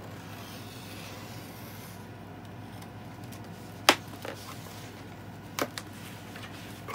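Cardboard mailer box being cut open with a small blade and its flap pulled up: faint scraping, then a sharp snap about four seconds in and another about a second and a half later, over a low steady hum.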